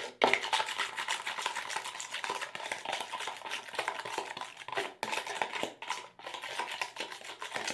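A spoon stirring dish soap and salt in a bowl, with a quick, continuous run of clicks and scrapes against the bowl, briefly pausing a few times.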